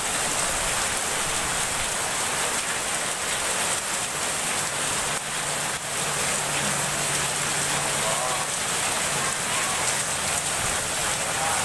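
Heavy rain pouring steadily, a dense, even hiss of falling drops.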